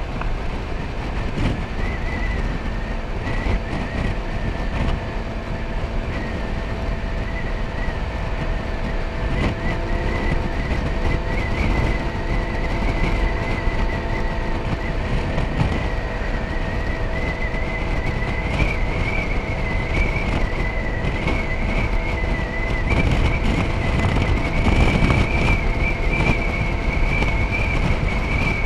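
Motor scooter running at a steady cruising speed, its engine drone joined by a thin high whine that rises slowly in pitch and gets a little louder in the second half, with a heavy rush of wind and road noise over it.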